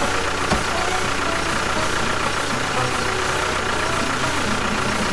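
A motor or engine running steadily, like a vehicle idling, with a steady whine on top.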